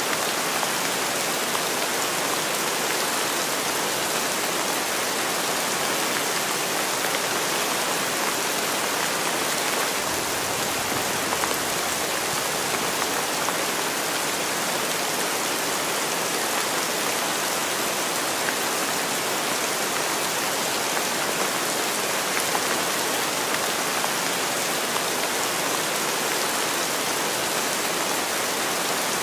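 Heavy rain falling in a steady downpour: an even, unbroken hiss of rain.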